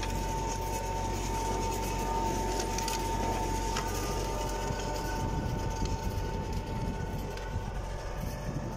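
Tractor running steadily under load while a disc harrow cuts and breaks up dry soil, with a thin steady whine that fades out about halfway through.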